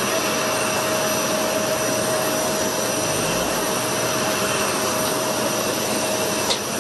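Jet aircraft turbine running steadily: an even roar with a constant high whine, and a brief click near the end.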